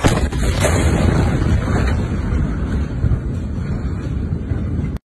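Blast wave of the Beirut port ammonium nitrate explosion reaching the phone: a sudden loud bang at the start, then a steady low rumble and buffeting on the microphone as the phone is jolted. The sound cuts off abruptly near the end.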